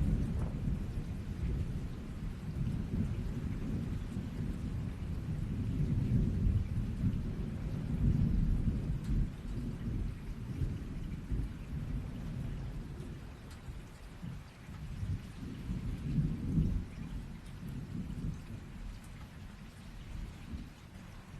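Rolling thunder over steady rain: a long low rumble that swells twice, in the middle and again a little later, then dies away toward the end while the rain hiss goes on.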